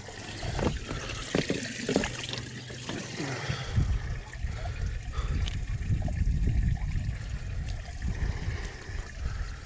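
Water trickling, with a steady low rumble underneath.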